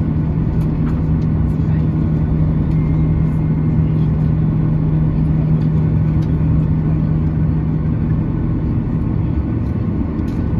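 Steady cabin drone of a Boeing 737-800 standing with its CFM56-7B engines idling: a constant low hum at one unchanging pitch over a rush of air.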